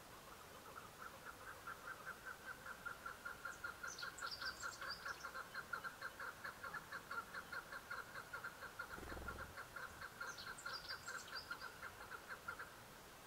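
Chukar partridge calling: a long, even series of 'chuk' notes, about four a second, swelling and then fading before it stops near the end.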